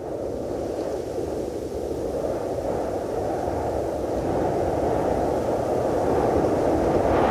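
Cold wind sound effect: a steady, deep blowing with no gusts or breaks, growing slightly louder toward the end.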